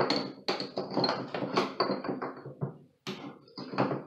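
Quick, irregular metallic clicks and scrapes of a drain-removal wrench turning in an old bathtub drain as the freshly loosened drain is unscrewed. There is a brief pause about three seconds in.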